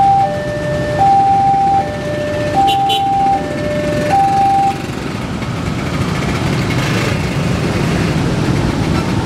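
Railway level-crossing warning alarm sounding a two-tone high-low signal, each tone about three-quarters of a second, that stops about five seconds in. Under it a train runs by with a steady low rumble.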